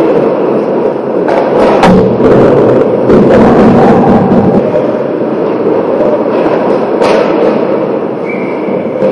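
Ice hockey play heard from just behind the goal: a loud steady din of skates on the ice and players moving, with sharp impacts of puck and sticks about two seconds in and again about seven seconds in. Near the end a short steady whistle blows as play stops after a shot on goal.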